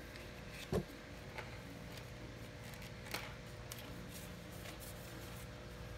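Faint handling noise of small plastic fishing-rod parts: a soft bump just under a second in, then a few light clicks, over a faint steady hum.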